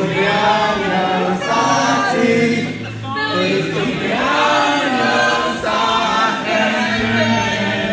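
A group of people singing together, many voices at once, heard as the sound of a played-back phone video over the room's speakers.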